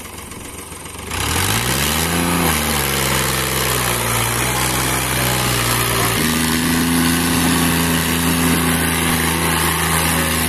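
Tractor diesel engine pulling a trolley loaded with sugarcane. It revs up sharply about a second in and drops back to a steady run, then steps up to a higher steady speed about six seconds in and holds it under the load.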